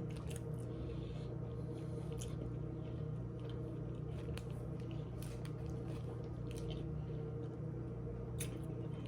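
Chewing and wet mouth sounds of a person eating a tuna sub sandwich, with scattered soft smacks and clicks, over a steady low hum.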